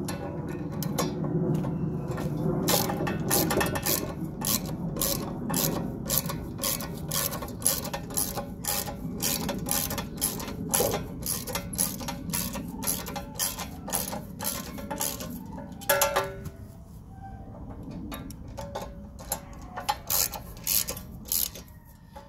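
Ratchet wrench on a long socket extension clicking steadily, a few clicks a second, as it tightens a mounting bolt. A low rough noise runs under it in the first few seconds.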